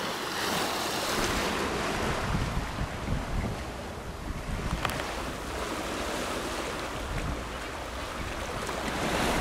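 Sea washing against a rocky shore, with wind buffeting the microphone.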